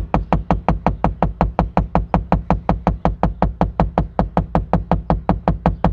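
Rapid, even tapping on the inside of a car windshield, about five taps a second, done to work windshield-repair resin into a rock chip and drive out the air bubbles.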